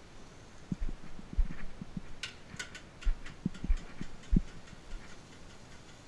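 Cookware being handled: a metal mesh strainer knocked against a frying pan, giving a series of dull knocks with a short cluster of sharp metallic clinks about two seconds in.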